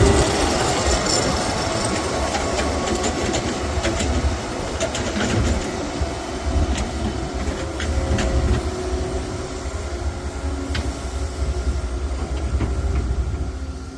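Hydraulic excavator working: a steady low engine rumble with scattered metallic clanks and knocks.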